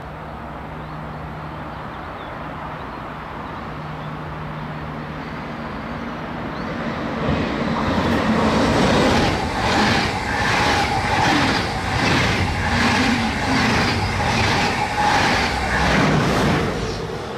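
A Swiss electric passenger train, a red SBB locomotive with double-deck coaches, approaches and runs through a station at speed. It grows louder from about six seconds in, then sounds as a loud rushing pass with a steady tone and a regular clack of wheels, about one and a half beats a second. The sound falls away abruptly as the last coach goes by near the end.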